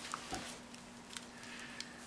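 Light handling noises from a plastic action figure being turned and worked in the hands: a few small clicks and brief fabric rustles, with one soft low bump about a third of a second in.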